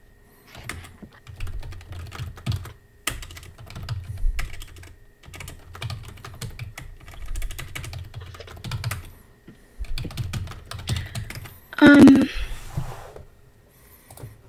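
Typing on a computer keyboard: rapid keystroke clicks in several bursts with short pauses between them. A brief burst of a voice about twelve seconds in is the loudest sound.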